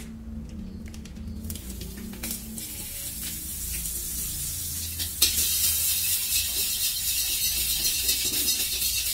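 Cooking oil sizzling in a hot wok after being poured in. About five seconds in, the sizzle jumps suddenly louder and stays loud.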